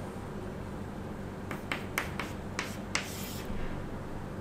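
Chalk writing on a blackboard: a quick run of about six sharp taps as symbols are written, then a short scratching stroke as a line is drawn.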